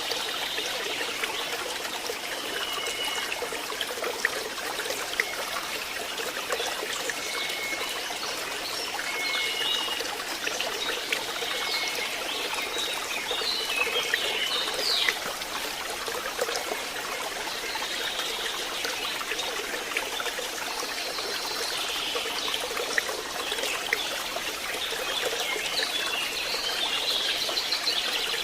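Stream water trickling and splashing steadily, with birds giving short high chirps scattered through the first half and again near the end.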